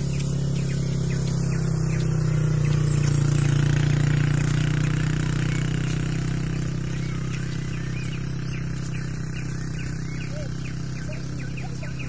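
A steady low motor hum that swells slightly and then eases off, with many short bird chirps over it throughout.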